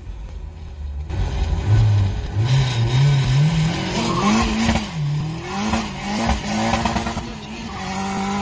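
Turbocharged Nissan SR20DET engine of a drift-built 180SX heard from inside the cabin: a low rumble at first, then revs climbing in steps as it is held at the line, and from about four seconds in a hard full-throttle launch whose revs rise and dip several times. The car is struggling for traction in first and second gear, with wheelspin.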